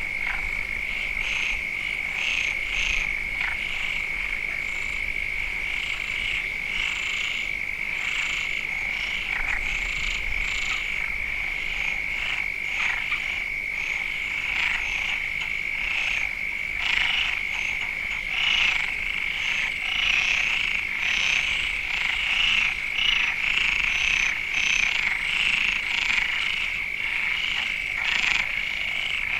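A chorus of frogs calling: a steady high drone under many short, overlapping croaks, which become denser and louder in the last third.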